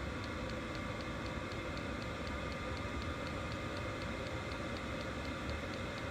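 An 8 kW diesel air heater converted to burn used oil, running steadily on high: the even rush of its combustion blower and burner, with the fuel dosing pump ticking about four times a second.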